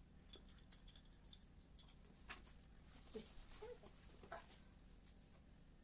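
Faint, scattered clicks and rustles of Christmas-tree ornaments and branches being handled, with a couple of brief soft squeaks near the middle.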